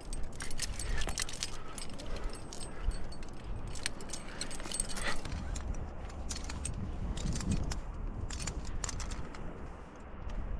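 A trad climbing rack of carabiners and cams clinking and jangling on a harness in many small metallic clicks as the climber moves and handles the rope at the anchor, over a steady low rumble.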